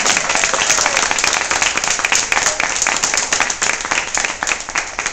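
Audience applauding, the clapping gradually dying down.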